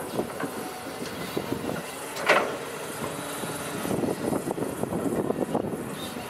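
Doosan DX225LCA crawler excavator's diesel engine running steadily as the machine lowers its boom and digs its bucket into sand. There is one brief, sharp louder sound about two seconds in.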